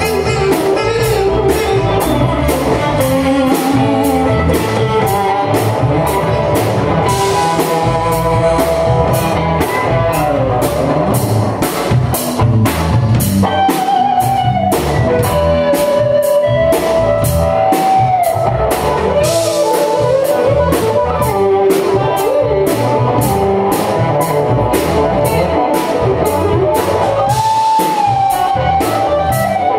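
Live band playing an instrumental passage: an electric guitar lead with sliding, bent notes over a steady drum-kit beat with regular cymbal hits.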